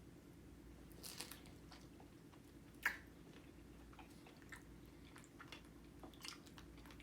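Faint chewing and mouth sounds of someone eating strawberry cheesecake, with a few soft clicks about a second in and a sharper one about three seconds in.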